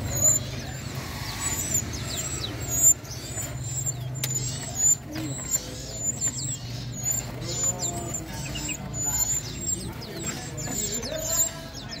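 Several small caged songbirds chirping and singing: quick, high, downward-sweeping chirps and sharp notes, many in a row, over a steady low hum.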